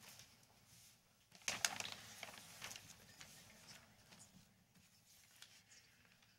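Paperwork being handled on a table: rustling sheets with a few light knocks and taps, the loudest about a second and a half in, as documents are stamped and signed.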